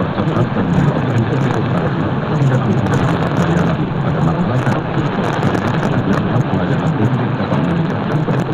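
Weak long-distance AM signal on 1008 kHz through a Fujitsu Ten-built Toyota car radio's speaker: steady dense hiss with frequent crackles of static and no clear programme audio.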